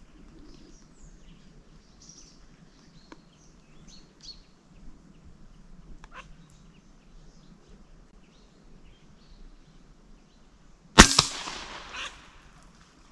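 A single PCP air rifle shot about eleven seconds in: a sharp crack with a short tail, then a smaller noise about a second later.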